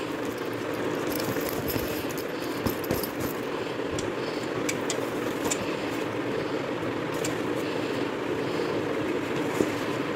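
Steady background noise, with scattered small clicks and rustling as steel tiffin boxes are packed into a zippered fabric lunch bag.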